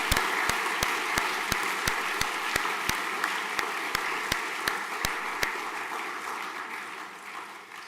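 Audience applause in a hall, with one nearby clapper's sharp claps standing out about three times a second. It dies away over the last two seconds.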